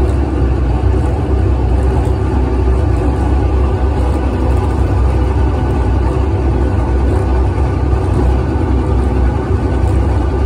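Steady engine drone and rumble of a moving open-sided tram, heard from a passenger seat.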